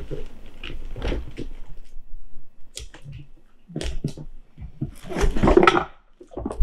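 Gift-wrapping paper rustling and crinkling as it is folded around a cardboard box, with scattered taps and a louder stretch of crinkling about five seconds in.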